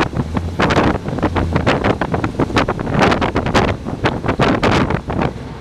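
Wind buffeting the microphone in irregular gusts at the window of a moving train, over the train's low running rumble.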